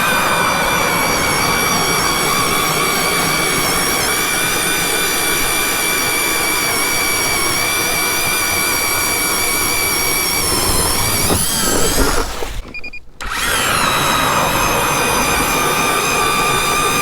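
Battery-powered ice auger spinning up and running steadily with a high, even whine as it bores a hole through the ice. Around eleven seconds in its pitch dips and rises; it stops about a second later, then spins up again and runs on.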